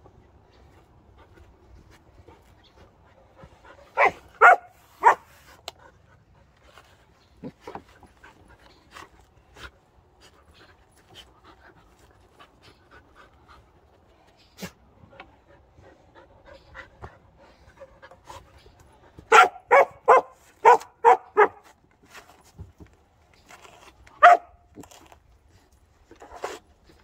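Samoyed puppy barking in short, sharp bursts: three quick barks about four seconds in, a run of about six near the twenty-second mark, and one more a few seconds later. Faint scratching of paws in loose dirt lies between the barks.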